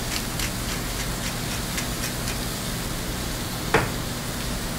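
Sliced onions and peppers sizzling in a sauté pan over a gas burner, with a hand pepper mill grinding in light, quick clicks over the first couple of seconds. A single sharp knock sounds near the end.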